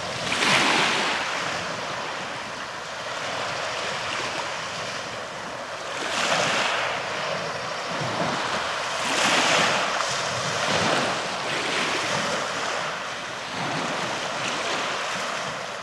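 Small lake waves washing in on a pebble beach, a steady hiss that swells and ebbs every few seconds as each wave comes up the shore.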